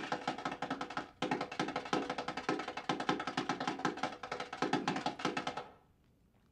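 Fast percussive music: a rapid run of tapping, clicking beats over steady pitched notes. It breaks off for an instant about a second in, then resumes and stops abruptly near the end.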